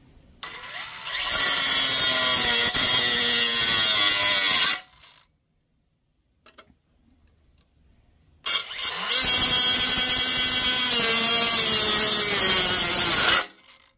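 A Craftsman V20 brushless 3-inch cutoff tool spinning up and cutting thin sheet-metal steel in two bursts of about four to five seconds each, with a pause of about three and a half seconds between them. The wheel is riding up on the metal rather than biting steadily.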